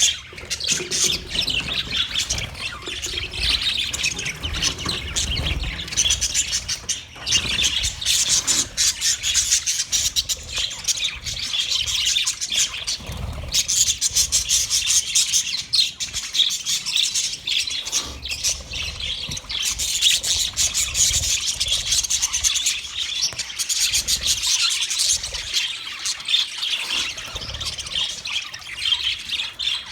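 Budgerigars chattering and chirping, several birds warbling and squawking at once without pause.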